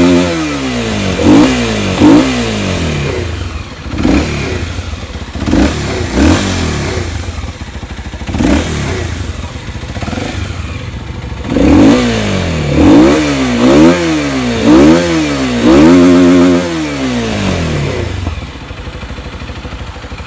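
Kawasaki Z250SL single-cylinder engine idling and being revved in quick throttle blips: several scattered blips, then about five in quick succession, then settling back to idle near the end. Its airbox and exhaust are home-modified, which the owner says makes it sound like a twin-cylinder.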